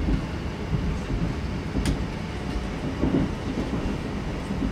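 Steady low rumble of a Yamagata Shinkansen E8 series train running, heard from inside the passenger car, with one faint click about two seconds in.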